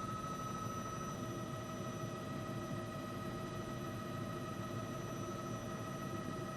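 Steady hum and hiss of a news helicopter in flight, heard through the crew's intercom, with a fixed high whine that does not change.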